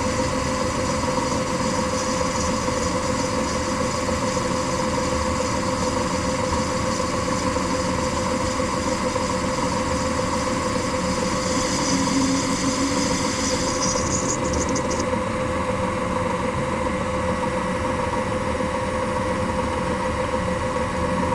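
An electric machine-tool motor running steadily with a hum. A higher hiss joins it about 11 seconds in and stops abruptly about 15 seconds in.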